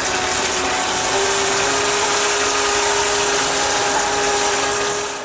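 Electric jet drive of a home-built jetsurf board running under power, water churning and splashing through it, with a steady motor whine that steps up slightly in pitch about a second in.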